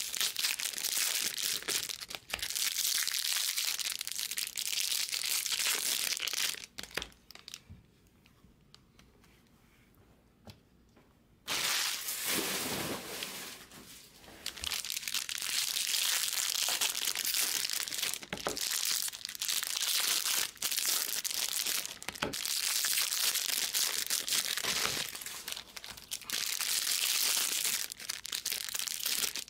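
Foil wrappers of 2022 Bowman Jumbo baseball card packs crinkling and tearing as packs are ripped open and the cards handled, with a quiet pause of a few seconds about a quarter of the way in.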